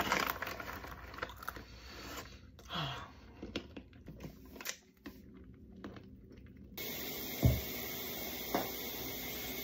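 A snack bag of honey roasted peanuts rustling and crinkling, and peanuts being crunched while eaten, in scattered irregular clicks. About two-thirds in, a steady hiss takes over, with a single thump soon after.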